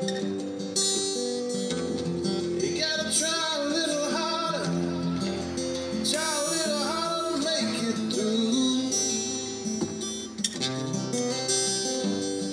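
Acoustic guitar played live with a man singing over it; the voice comes in and out in phrases.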